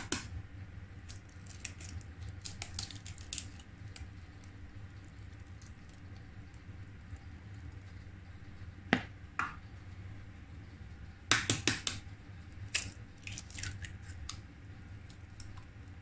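Eggs being cracked into a bowl of grated raw potato: scattered sharp taps and clicks, with a quick cluster of taps about eleven seconds in.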